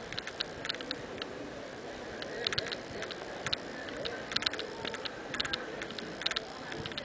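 Footsteps of a crowd on a paved street: many sharp, irregular clicks of shoes and sandals over a steady murmur of crowd chatter.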